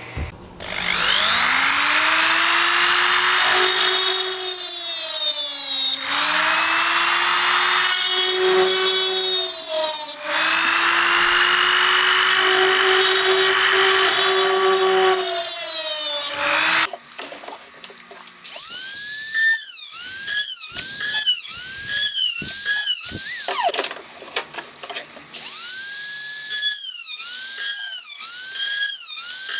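Handheld rotary tool with a small burr cutting into a brass sword guard: a high motor whine that sags in pitch under load. It runs steadily for the first sixteen seconds or so, then comes in short touches about once a second as each dimple is cut, the pitch dropping and recovering each time.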